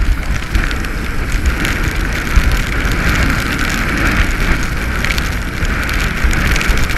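Rain falling on and around an open canoe, with wind buffeting the microphone: a steady dense hiss of drops with fine ticks over a deep, gusting rumble.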